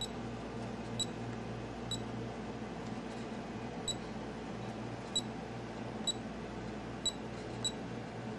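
Short, high-pitched beeps from a handheld digital clamp meter as its buttons are pressed, about eight of them at irregular intervals of roughly a second, over a faint steady hum.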